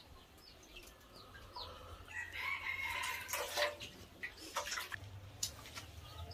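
A rooster crowing, loudest from about two to four seconds in, with short bird chirps before it and a few sharp knocks.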